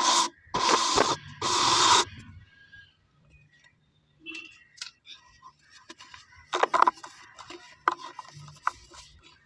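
Dry cement balls being crushed and rubbed, crumbling into powder with gritty, scraping crunches. There are two loud crunches in the first two seconds, fainter scraping after them, and a cluster of sharp crunches about seven seconds in.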